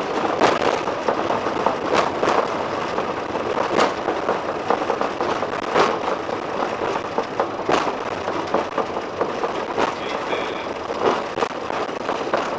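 Cockpit noise of a Boeing 737-500 moving fast along the runway: a loud, steady rush of engine and airflow, with a sharp knock about every two seconds.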